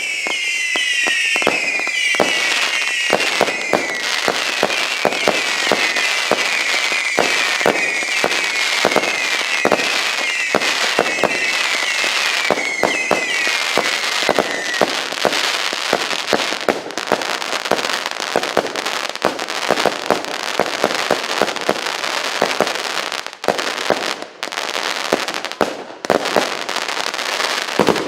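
A 100-shot, 0.8-inch (20 mm) firework cake battery firing a fast, continuous string of shots. Over roughly the first half, falling whistling tones repeat over the shots; near the end the shots thin out with brief gaps.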